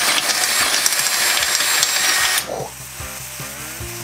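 Power drill cutting through a steel motorcycle frame tube with a loud, harsh whine, enlarging the hole for a weld-in tank bung; it stops about two and a half seconds in. Background music with a steady beat follows.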